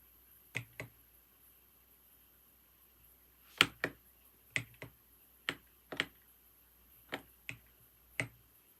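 Computer keyboard keys pressed slowly and unevenly: about a dozen single clicks and close pairs, with a pause of about three seconds after the first two.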